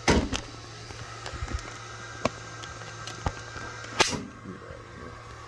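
Handling noise: a few sharp clicks and knocks, the loudest about four seconds in, over a steady low hum.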